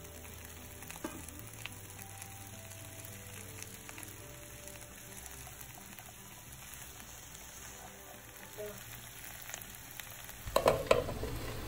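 Chopped okra and onion sizzling in hot oil in a nonstick pan while a wooden spatula stirs them, with scattered small taps of the spatula. A short burst of louder knocks comes near the end.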